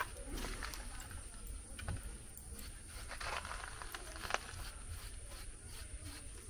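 Faint sizzle and crackle of food cooking, with scattered light clicks and one sharper click about four seconds in, over a low steady rumble.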